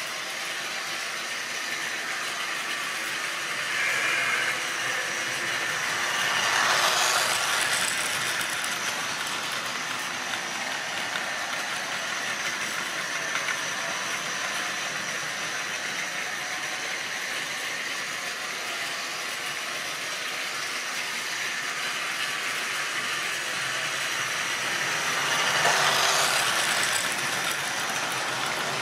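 Model railway goods train of open wagons running round the layout, its wheels rattling steadily along the track, swelling louder about seven seconds in and again near the end as the train passes close.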